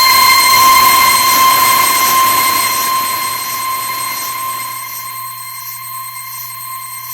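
A steady high electronic tone over a hiss that slowly fades; a low hum comes in about two-thirds of the way through.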